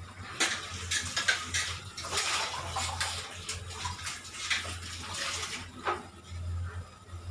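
Water splashing and running, with small clinks of kitchen vessels, over a steady low hum.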